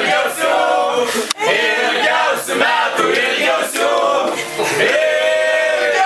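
A group of men and women singing a birthday song together as the candle-lit cake is brought in.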